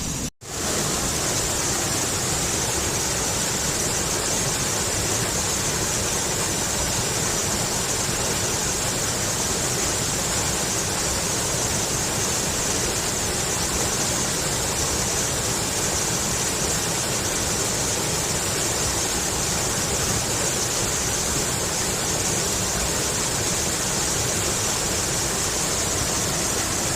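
Steady rush of flowing water, an even hiss with no rhythm or pattern, starting after a brief cut out just under half a second in.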